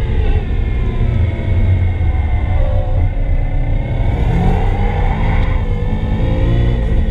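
Nissan SR20DET turbocharged 2.0-litre four-cylinder heard from inside the cabin of a track car at speed, with a heavy low rumble: the engine note climbs under acceleration and falls away about five and a half seconds in.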